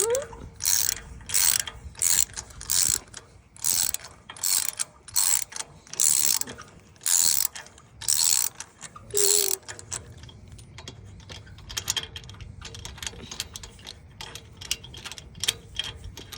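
Socket ratchet turning a 13/16 spark plug socket to loosen a lawnmower spark plug. About a dozen loud bursts of ratchet clicks come one after another over the first nine or ten seconds, then lighter, quicker clicking follows.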